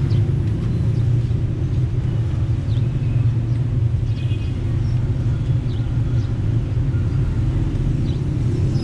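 Steady low rumble of busy street traffic, engines running as vehicles pass, with a few faint short high tones now and then.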